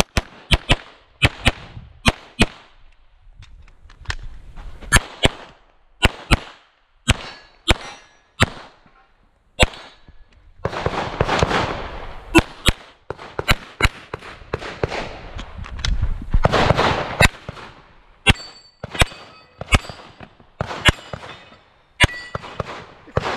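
Semi-automatic pistol being fired in a fast competition course of fire, many sharp reports, mostly in quick pairs, with longer stretches of scuffing noise between strings as the shooter moves between positions.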